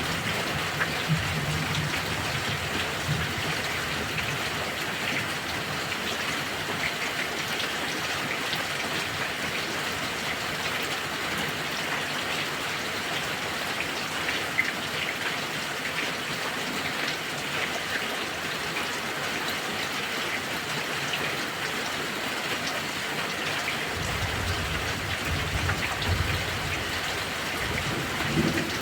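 Heavy rain falling steadily, a dense even hiss of drops. A low rumble of thunder sits under it in the first few seconds and starts again near the end, swelling.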